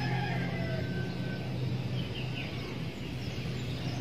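A few faint chicken calls in the background over a steady low hum.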